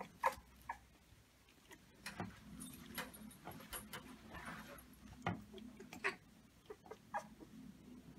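Newborn Brittany puppies giving short, faint squeaks and whimpers, about eight scattered calls, with soft scuffling as they crawl over each other on fleece bedding.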